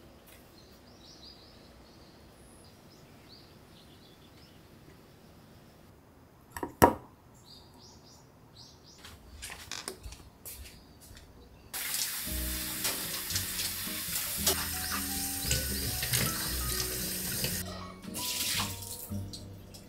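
Water running from a tap into a kitchen sink for about six seconds, then briefly again, after a single sharp clack a few seconds earlier.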